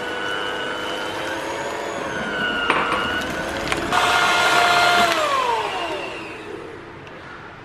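Philips electric hand mixer beating thin chocolate cake batter, its motor giving a steady whine. About four seconds in it jumps to a louder, higher speed for a second, then is switched off and the whine falls away in pitch as the beaters spin down.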